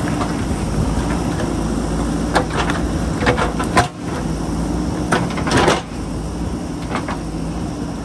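JCB 3DX backhoe loader's diesel engine running steadily as the backhoe bucket scrapes and knocks against rocks and soil, with several sharp clunks and grinding between about two and six seconds in.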